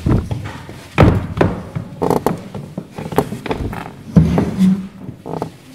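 Knocks and thuds of people moving about a stage: heeled footsteps on the boards and a step up onto a box, then a bump as someone drops into an armchair a little after four seconds.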